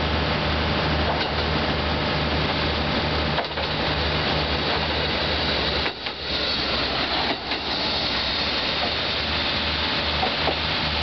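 JR Kyushu KiHa 125 single-car diesel railcar rolling into a station and past at low speed, its diesel engine running with a low pulsing hum, then coming to a stop. A steady hiss of noise lies over it.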